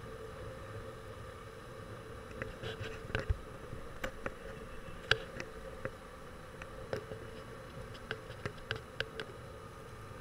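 Steady buzzing drone of a moving motorbike or scooter heard from the rider's seat, with scattered sharp clicks and rattles between about two and nine seconds in.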